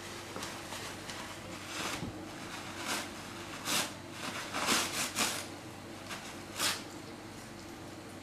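Toilet paper crinkling and tearing in short bursts as a Siberian husky pulls it out of a cardboard roll. A steady low hum runs underneath.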